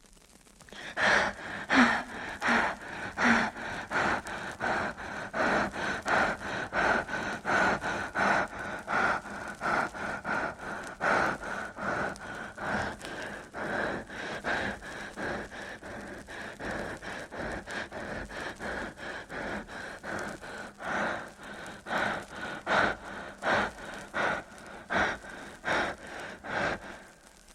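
Rhythmic breathing-like horror sound effect: quick gasping pulses about two a second over a steady high tone. It starts about a second in and stops abruptly just before the end.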